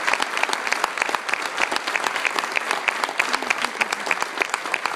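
A crowd applauding, with dense, steady clapping throughout.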